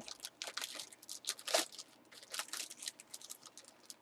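Taped plastic packaging crinkling and tape tearing as it is pulled and worked open by hand, in many short, irregular crackles.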